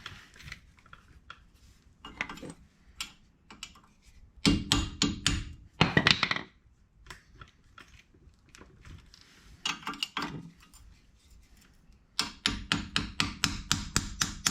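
Series of sharp metal taps from a small hammer knocking a cover loose, most likely the grease cap on a front wheel hub. The taps come in short clusters, ending in a quick run of about four or five strikes a second near the end.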